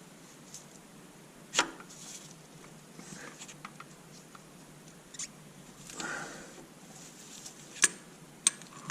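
A few light, scattered clicks and a short rustle: small parts and tools being handled during hand work on a car engine. The sharpest click comes about a second and a half in, and the rustle just past the middle.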